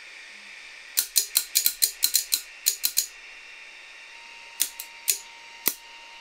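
A quick run of sharp small clicks, about a dozen in two seconds, then four more spaced clicks, as bare wire leads are handled and joined to power an LED headlight projector. About four seconds in, a faint steady high whine sets in as the unit powers up.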